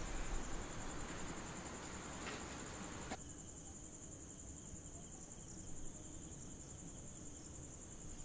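Faint, steady high trill of crickets over low background hiss, with a soft click about three seconds in.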